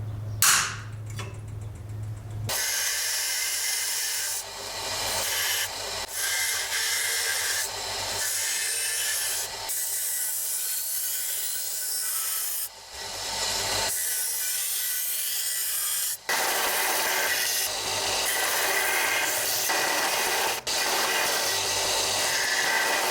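Hand-tool scraping and rubbing, a file or abrasive worked back and forth against the knife or its handle, in short stretches that cut off abruptly several times. A low steady hum and a sharp loud hit come in the first couple of seconds.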